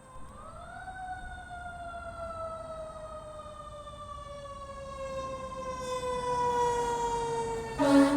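Fire truck siren winding up over the first second, then slowly falling in pitch while it grows louder. Near the end a loud air horn blast cuts in over it.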